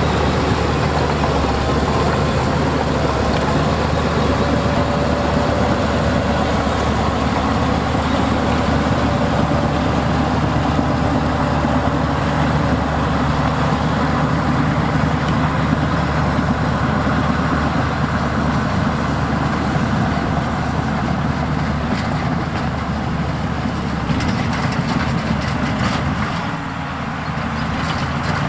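Heavy diesel earthmoving machinery running steadily under load, with a short dip in level near the end.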